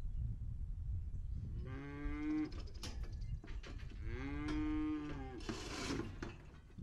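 A weaned Braford calf bawling twice, a short moo followed by a longer one, each rising then falling in pitch.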